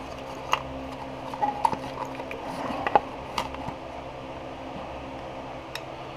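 A few light clicks and taps of small motorcycle parts being handled and fitted together, over a steady background hum.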